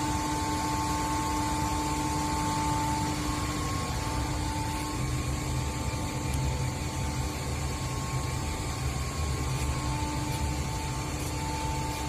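Steady hum of HVAC plant machinery, chiller-system pumps, motors and air-handling ductwork, with a low rumble and two steady tones that fade out about four seconds in and return near the end.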